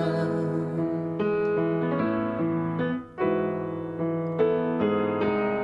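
Instrumental piano passage of a Cantopop ballad between sung lines: chords struck every half second or so, with a brief pause just after three seconds in.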